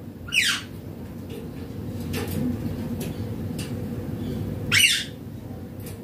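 Indian ringneck parakeet giving two short, harsh squawks about four seconds apart, each a quick falling screech.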